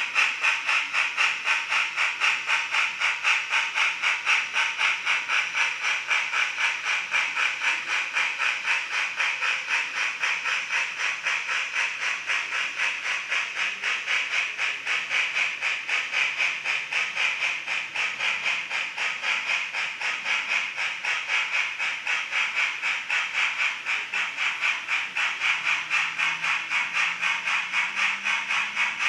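Model steam locomotive's sound effects chuffing in a quick, even rhythm, with a thin, tinny hiss typical of a small onboard speaker.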